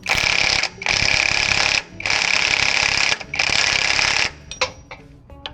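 Impact wrench running down a fastener on the truck's front suspension in four bursts of rapid hammering, each about a second long with short pauses between, ending a little past four seconds in.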